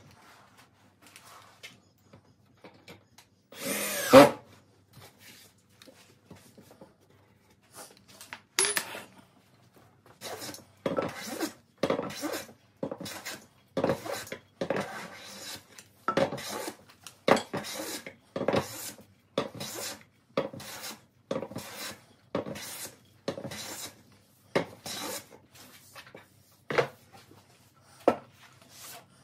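Hand plane shaving a glued-up wooden block in a quick, regular run of rasping strokes, somewhat more than one a second, starting about ten seconds in. Before that there is a brief louder noise about four seconds in.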